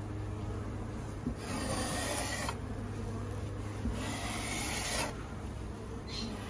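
Metal putty knife scraping along the wooden floor of a drawer in repeated strokes about a second long, clearing dusty powder and debris.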